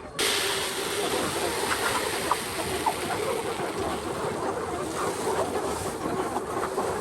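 Steady heavy rain starting abruptly, with chickens clucking faintly underneath.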